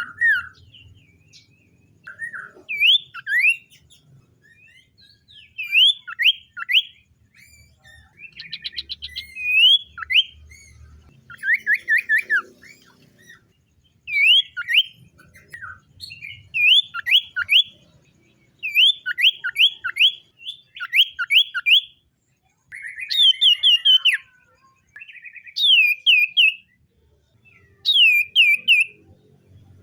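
Common iora singing: short phrases of two to four quick whistles, each sliding steeply downward, repeated every couple of seconds.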